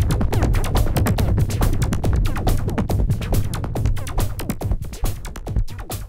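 Electronic dance music played on a Yamaha AN1x virtual-analog synthesizer, its own drum and rhythm patches driving rapid percussive hits over a heavy bass line. It fades out over the last couple of seconds.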